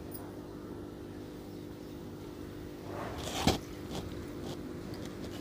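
Water poured from a glass into a steel pressure cooker of egg masala, splashing into the gravy from about three seconds in, with a sharp clink about half a second later and a few lighter taps after it.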